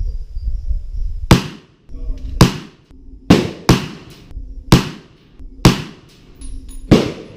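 Bushmaster AR-15 in .223/5.56 with a Carlson Nitro Flash Enhancer, firing seven single shots at an uneven pace, two of them in quick succession, each with a short ring-off. The flash enhancer makes the shots much louder than the stock flash hider.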